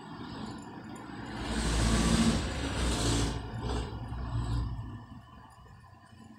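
A road vehicle passing by: a low rumble with a hiss over it that swells to a peak about two to three seconds in and fades away by about five seconds.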